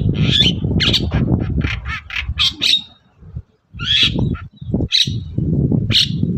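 Long-tailed shrike (cendet) giving a rapid run of harsh, rasping squawks. The calls stop briefly about halfway through, then a few single calls follow, over a steady low rumble.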